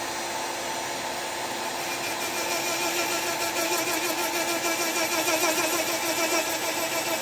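Rotary tool with an abrasive stone bit running steadily as it roughens a silver nameplate's surface so solder will run. The whine grows louder and wavers from about two seconds in.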